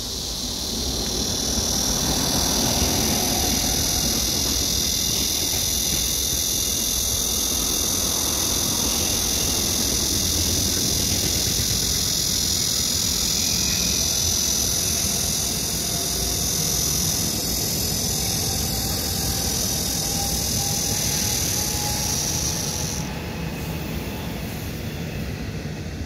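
Black cicada (Cryptotympana atrata) singing, a steady, loud, high buzzing drone that cuts off suddenly near the end.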